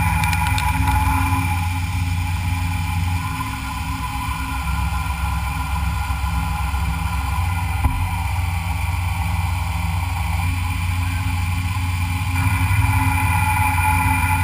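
Metalworking machine tool running steadily during machining, a continuous hum with a high whine.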